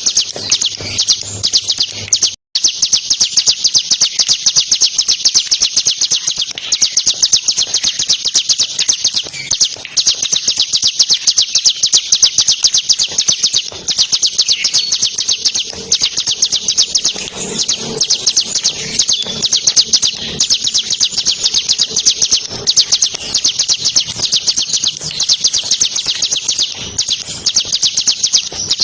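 Bar-winged prinia (ciblek) singing without pause: a loud, very fast, high-pitched rattling trill of rapid notes, briefly cut off about two seconds in.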